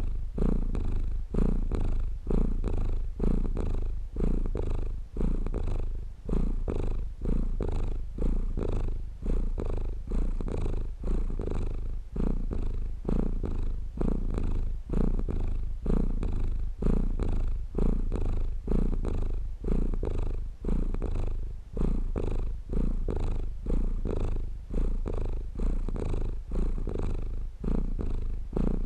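Domestic cat purring close up, a low, steady purr that swells and dips in a regular rhythm about once a second.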